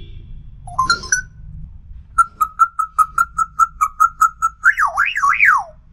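African grey parrot whistling: a short rising chirp, then a fast run of about a dozen identical notes at about five a second, ending in two swooping whistles that rise and fall.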